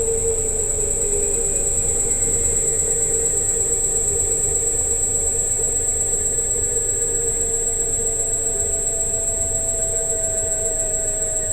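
Electric scooter running, its motor giving a steady high-pitched whine over a lower hum that sinks slightly in pitch, with rumble from the wheels underneath.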